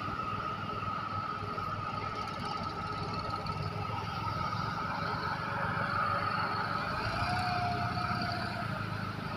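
Tractor-loader's diesel engine running steadily as the machine drives over mud, with a steady high whine over the engine note. It gets a little louder after the middle.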